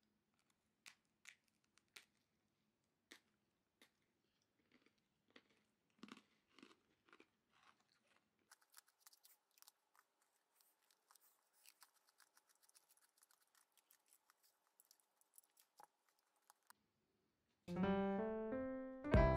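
Faint, crisp crunches of a hard senbei cracker being bitten and chewed, coming one at a time at irregular intervals. Piano music starts loudly near the end.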